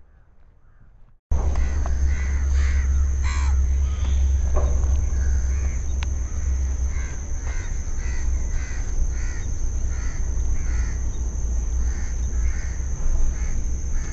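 Crows cawing over and over, starting abruptly about a second in, with heavy wind rumble on the microphone and a steady high-pitched insect drone underneath.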